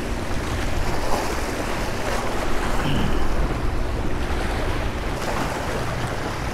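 Surf washing and splashing against the large boulders of a rock groin, steady throughout, with wind rumbling on the microphone.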